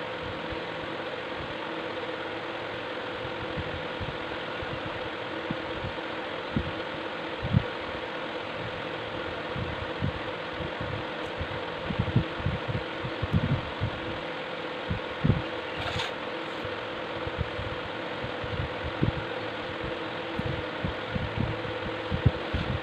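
A steady machine-like hum with several fixed tones over a hiss, with irregular low thumps and knocks scattered through it, thickest in the middle.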